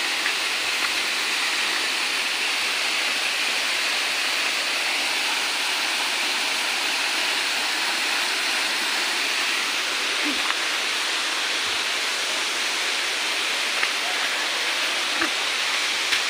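Waterfall's falling water rushing steadily, a continuous hiss-like roar of water, with a few light clicks near the end.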